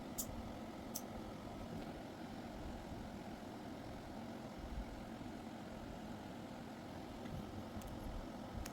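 Hair trimmer's motor running steadily with a low hum, with a couple of small clicks about a second in.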